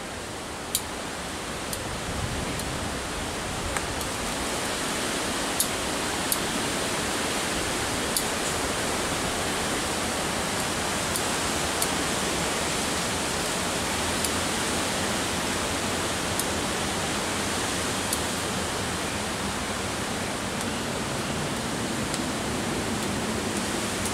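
Bonsai pruning shears snipping off leaves and twigs: short sharp clicks, irregularly every second or two, over a loud, steady rushing hiss.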